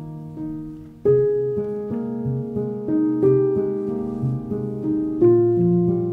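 Background piano music: a gentle melody over held chords, which comes in fuller and louder about a second in.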